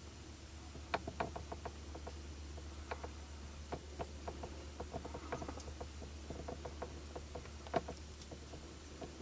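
Irregular soft crunches and twig snaps of a whitetail buck moving through snowy brush, the sharpest about a second in and again near the end, over a steady low hum.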